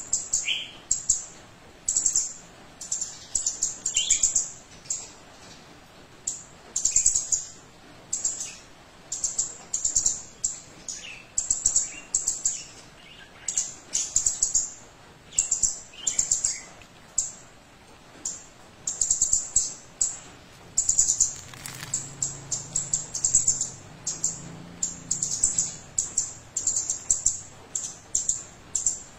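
A young kemade songbird, still in speckled juvenile plumage, singing vigorously: short, high, chirping phrases repeated about once a second, some with quick falling notes.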